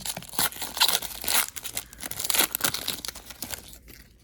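Trading card pack wrapper crinkling and tearing as the pack is opened by hand, in a run of irregular crackles that dies away near the end.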